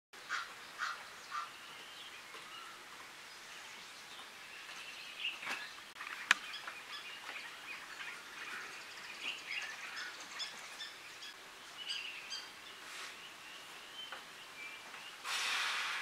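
A mix of wild bird calls and chirps from several birds over a faint steady background hiss, with three sharp calls in the first second and a half and a sudden short rush of hiss near the end.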